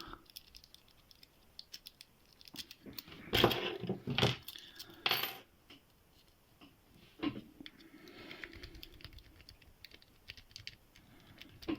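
Lock pick and tension wrench working in a Qualtec pin-tumbler padlock: light metallic clicks and scrapes as the pins are rocked, with a few louder metal clinks between about three and five seconds in and once more a little after seven seconds.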